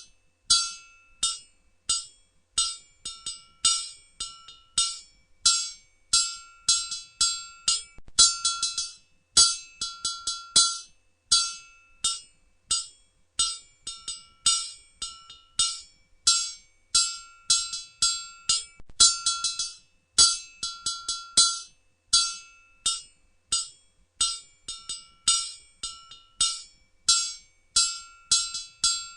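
Blacksmith's hammer striking hot metal on an anvil in a steady working rhythm: quick runs of ringing blows with brief gaps between them, each strike leaving a clear metallic ring.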